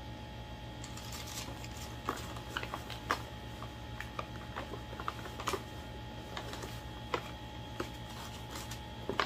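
Irregular light clicks and crinkles of packaging and folded clothes being handled while a parcel is unpacked, over a steady low hum.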